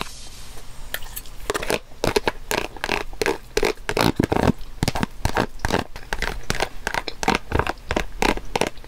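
Fingers rummaging in a hand-held container of food: an uneven, continuous run of crinkles, scrapes and small clicks.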